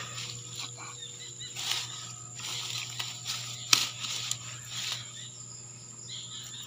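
Rustling and crunching of grass, weeds and dry leaves as someone moves through brush, with a sharp snap a little past halfway. A steady high insect drone and a low hum run underneath.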